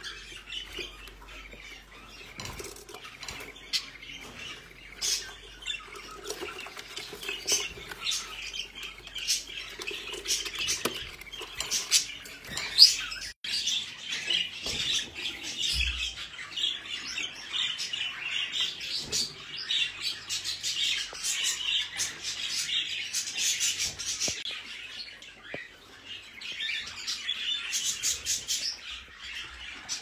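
Budgerigars chirping and chattering continuously in a flock, with squawks mixed in. One sharp click about thirteen seconds in.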